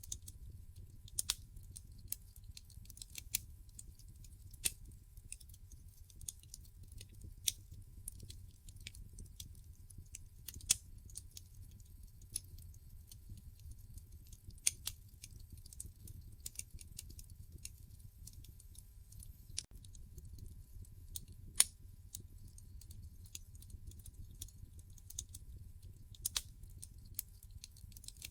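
Wood fire in a fireplace crackling: irregular sharp pops and snaps from the burning logs over a low steady rumble of the flames.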